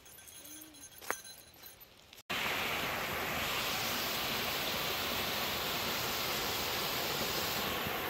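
A quiet stretch with one short sharp sound about a second in, then an abrupt cut to the loud, steady rush of a waterfall pouring down a rocky cascade.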